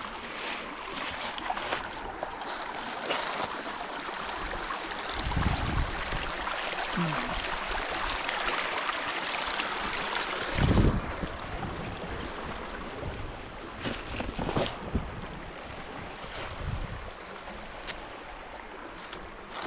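Steady rush of flowing stream water, loudest through the middle and falling away after a low thump about eleven seconds in, with a few scattered knocks.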